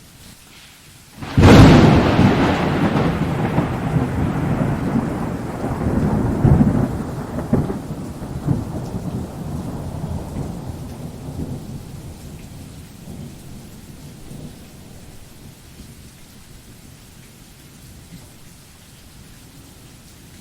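Thunder from a lightning strike: a sudden sharp crack about a second in, then a long rumble that swells again a few seconds later and slowly dies away over about fifteen seconds. Steady rain runs underneath.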